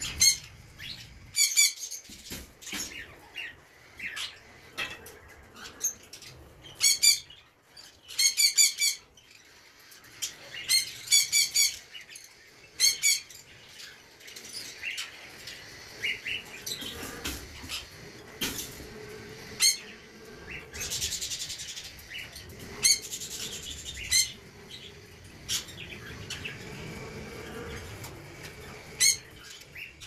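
Pet parrots chirping shrilly in short series of quick, repeated high notes, with pauses between calls.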